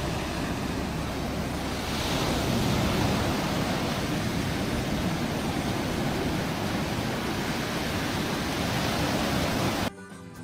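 Waves breaking and washing up a sandy beach, a steady rushing noise that cuts off suddenly near the end.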